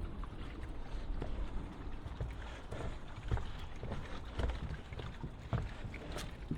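Footsteps on a dirt trail, a few irregular soft thuds, over a steady low rumble of wind on the microphone.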